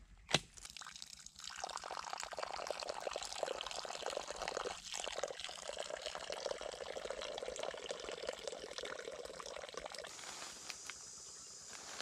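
A thin stream of water pouring and splashing into a small pot that already holds water, running steadily for about eight seconds before it stops. A single sharp click just after the start is the loudest moment.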